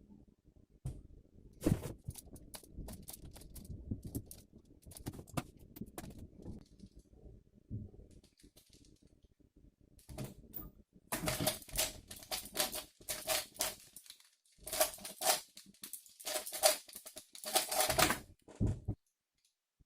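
A Rubik's cube being turned by hand: scattered plastic clicks of layer turns at first, then from about halfway in, fast dense flurries of turning clicks in several runs of a couple of seconds each, as in speed-solving.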